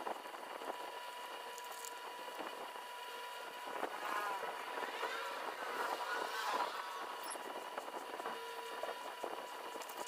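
Snap-off utility knife blade drawn along a steel ruler, cutting through foam board with a faint scraping, over a faint steady high hum.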